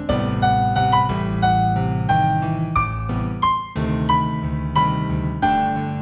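Gentle new-age piano piece in G major: a slow melody of single notes, about two a second, over sustained low chords.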